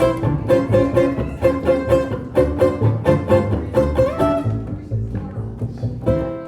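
Live small band playing an upbeat swing-style tune without vocals, with bass notes under a repeated melodic riff and a steady beat. The playing thins out about two thirds of the way in, then the full band picks up again near the end.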